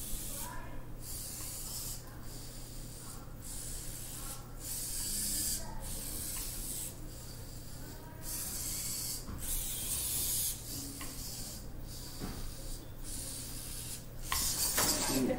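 Servo motors of a small bipedal walking robot whirring in a string of short, hissy bursts as it takes step after step, with brief pauses between movements. A louder, busier sound comes about a second before the end.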